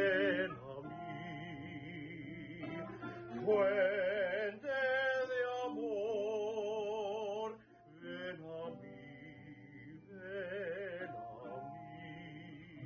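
A man singing a slow hymn solo in Spanish, with vibrato on the held notes.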